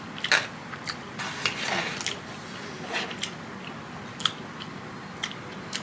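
Close-up chewing and biting of food, with scattered short clicks and crunches from the mouth.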